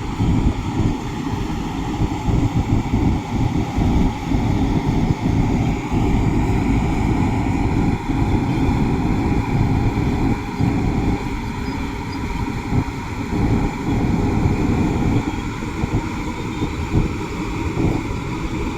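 Diesel engine of heavy construction machinery running steadily under work, a continuous deep rumble that rises and falls slightly without stopping.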